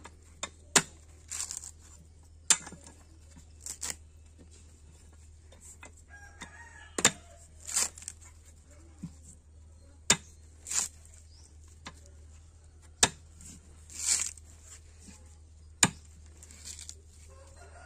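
Fresh green coconut being trimmed with a curved sickle knife. Sharp chops land in the fibrous husk about every three seconds, each followed by a short rasping stroke as a strip of husk is sliced away. A low steady hum runs underneath.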